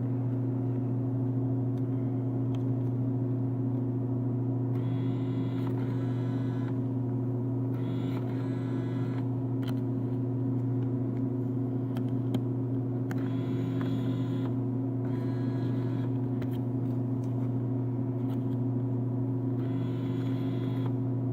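Vending machine humming steadily, with several short whirs, each a second or two, from the bill acceptor's motor drawing a bill in and pushing it back out: the machine is rejecting the taped bill.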